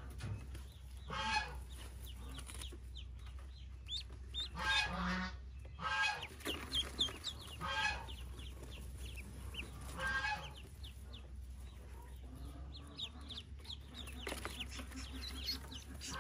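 Pekin ducklings peeping continually, many short, high, rising peeps overlapping. Louder, fuller calls from an adult bird break in every one to three seconds during the first ten seconds.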